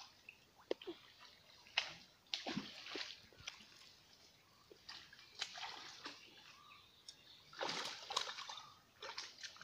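Fish splashing at the surface of shallow pond water: several short, separate splashes, the longest and loudest near the end.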